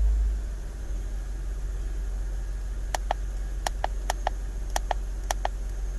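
Steady low hum of a BMW N62 V8, with a brief swell right at the start. From about three seconds in, a quick run of short sharp clicks, often in pairs, as the code reader's buttons are pressed to clear a fault code.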